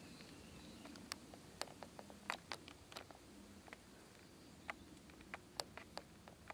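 Quiet background with a faint low hum, broken by about a dozen sharp, irregularly spaced clicks and ticks.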